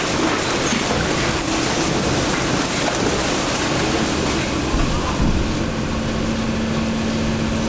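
Hydraulic waste compactor running: a continuous machine rush with a steady low hum, joined by a second steady hum about five seconds in.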